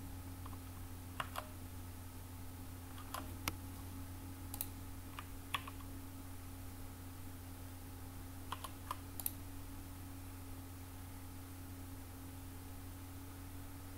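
Computer keyboard keys struck in a few short clusters of clicks, stopping about nine seconds in, over a steady low hum.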